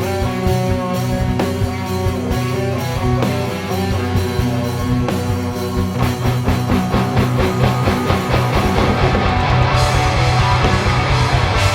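Heavy metal band playing an instrumental passage: electric guitars, bass guitar and drums. The drumming grows faster and denser about halfway through.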